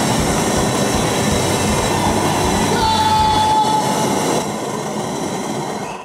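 Long-nozzle gas burner firing a flame at full blast, a loud steady hissing rush. It eases a little after about four seconds and stops right at the end.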